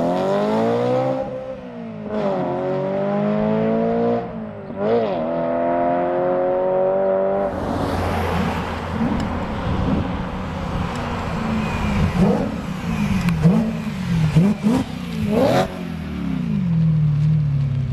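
BMW E92 M3's 4.0-litre V8 through a Fabspeed Maxflo performance exhaust, accelerating hard: the engine note climbs, drops back at two shifts about 1.5 and 4.5 seconds in, and climbs again. It then gives way to a rushing noise with the engine pitch rising and falling underneath and a few sharp pops. Near the end it winds down in pitch.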